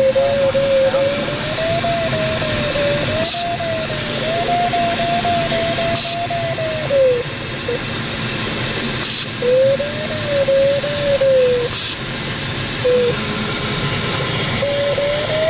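Inside a glider cockpit, air rushes steadily over the canopy while the audio variometer sounds a single tone that wavers up and down in pitch as the glider rides turbulent lift. The tone breaks off twice for a second or two and rises in pitch near the end, a sign of stronger climb.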